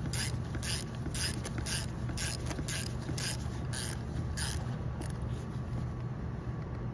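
Hand ratchet wrench clicking in quick repeated strokes, about three a second, as it snugs down a nut on a hydraulic pump's intake screen housing; the clicking stops a little past halfway.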